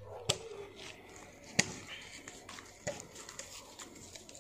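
Three sharp clicks or taps, about a second and a half apart, over a faint steady hiss.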